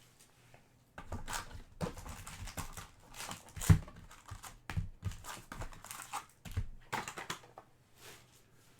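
Irregular taps, clicks and light rustling from hands working at a desk, with one louder knock nearly four seconds in.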